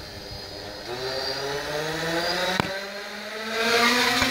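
Hexacopter drone's six electric motors and propellers whirring, rising in pitch as they spin up about a second in and getting louder near the end as the drone throttles up to lift off. A single sharp click sounds about two and a half seconds in.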